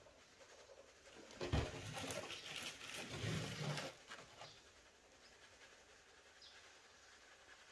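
Flour being sifted by hand: a round sieve shaken over an enamel basin, making a soft rustling patter that starts with a knock about a second and a half in and lasts about two and a half seconds.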